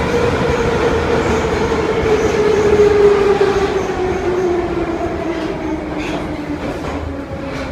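Metro train heard from inside the car: the traction motors' whine falls steadily in pitch over a rumble of wheels on rails as the train slows into a station, and the sound grows quieter toward the end.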